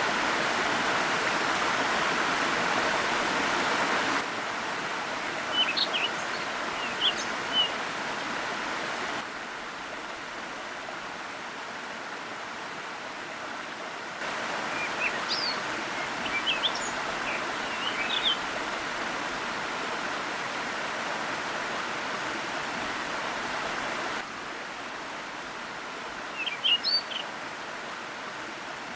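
Sopit Waterfall's steady rush of falling water, its level jumping abruptly up or down a few times. Short bird chirps come in three spells, about six, sixteen and twenty-seven seconds in.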